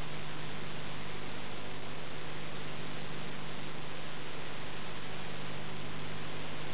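Steady hiss with a low, even electrical hum and nothing else: the noise of a transfer of silent Super 8 film.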